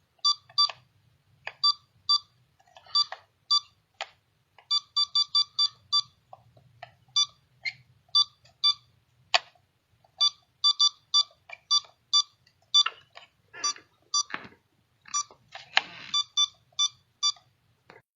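Electronic button beeps: many short, identical high-pitched beeps in an irregular pattern, some coming in quick runs of several beeps, mixed with sharp clicks of the buttons being pressed, the clicks busiest near the end.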